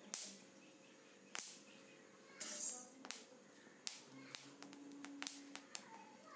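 Black horse gram seeds dry-roasting in a hot aluminium kadai, popping with sharp, irregular cracks about a second apart: the seeds are roasted enough to be splitting.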